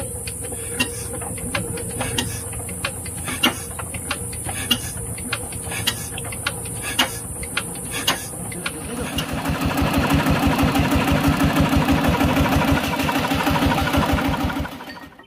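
Changfa 1115 single-cylinder diesel engine running. Scattered sharp clicks sound over a steadier rumble at first. About nine seconds in, a louder, fast, even pulsing takes over, then it stops abruptly near the end.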